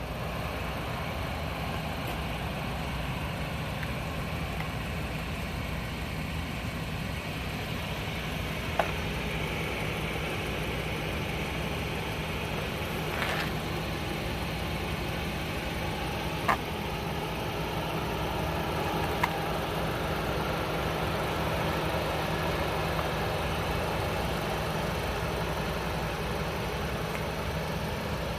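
Audi A3 45 quattro's turbocharged four-cylinder engine idling steadily, with a few brief sharp clicks or knocks at irregular moments.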